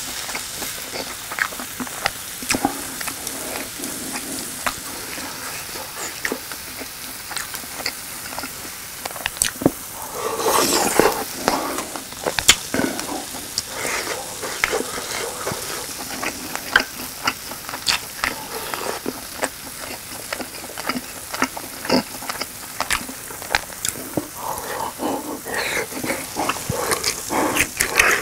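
Slices of grilling cheese sizzling on an electric grill pan in a steady hiss, with frequent sharp clicks of chopsticks against the pan and the cheese. Close-up chewing sounds come through about ten seconds in and again near the end.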